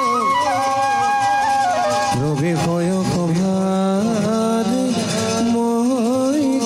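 Traditional Assamese Bhaona music: a melody in long, held, sliding notes over accompaniment, with a few drum and cymbal strokes about two to three seconds in.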